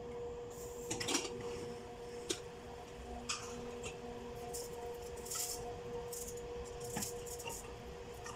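Scattered clinks and scrapes of utensils against an aluminium pressure cooker as it is opened and the cooked daal is stirred with a wooden spoon, over a steady low hum.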